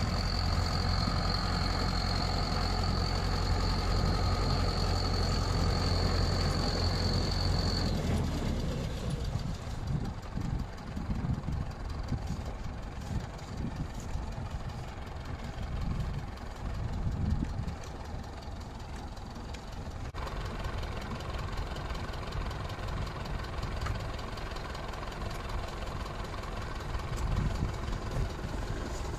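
International 745 XL tractor's four-cylinder diesel engine running while blowing snow, with a steady high whine over the engine, for about the first eight seconds. Then the engine runs at a lower, steadier pace with an uneven low rumble.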